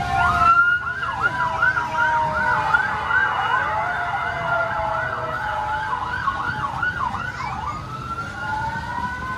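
Several overlapping electronic sirens from a children's fire-truck ride. One sounds a fast yelp, rising and falling about two to three times a second, and gives way to a slower wail near the end.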